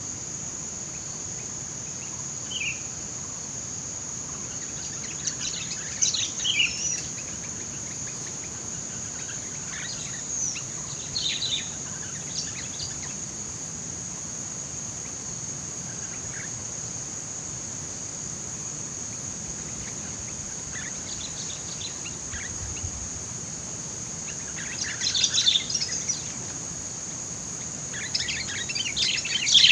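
Birds chirping in short, scattered bursts, busiest near the end, over a steady high-pitched insect drone.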